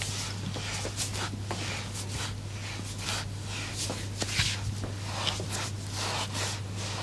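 Hands rubbing and sliding over skin in massage strokes, soft swishes coming about once or twice a second, over a steady low hum.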